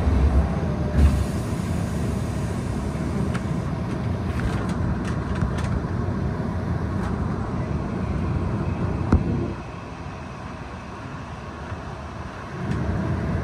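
Steady hum inside a Tokyo Metro Marunouchi Line subway train standing at a station, with a sharp thud about nine seconds in after which the sound drops. Near the end the sound rises again as the train starts to pull away from the platform.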